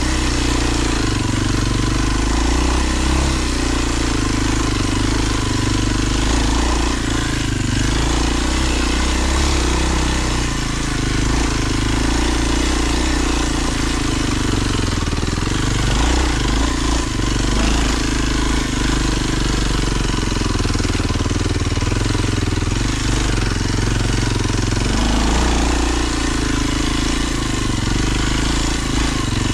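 Kawasaki KLX 230 dual-sport's single-cylinder four-stroke engine running under way on a dirt trail, its note rising and falling several times with the throttle.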